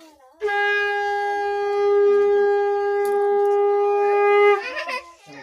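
Conch shell (shankha) blown in one long, steady note lasting about four seconds. It starts about half a second in and drops away near the end.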